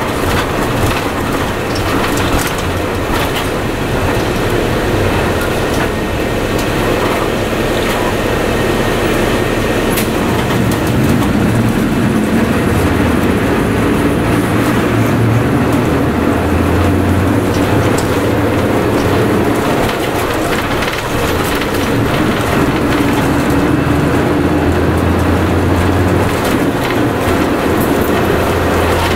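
Interior running noise of a 1998 Mitsubishi Fuso Aero Midi MK (KC-MK219JVF) route bus under way: a steady diesel engine drone with road noise and body rattle. The engine note grows stronger around the middle and again near the end.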